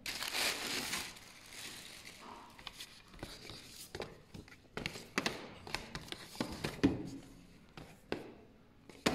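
Tissue paper crinkling and rustling as it is handled, loudest in the first second, followed by a string of light knocks and scrapes from a cardboard shoebox and lid being moved about.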